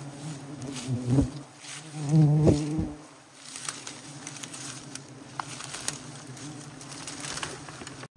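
Disturbed honeybees buzzing around a wild comb as it is taken down. Bees pass close with loud, wavering buzzes in the first three seconds, then a lower steady hum with faint ticks.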